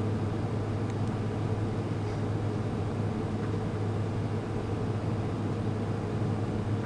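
Steady low mechanical hum that holds one pitch and level throughout, with no other clear sound over it.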